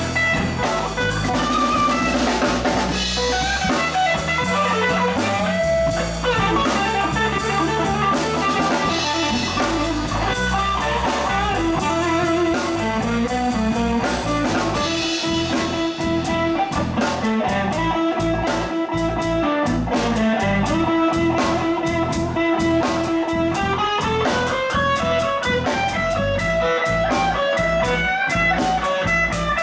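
Live band playing an instrumental passage: electric guitar over electric bass and a drum kit keeping a steady beat.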